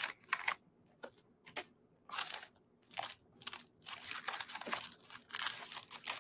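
Packaging crinkling and rustling as it is handled, in irregular short bursts.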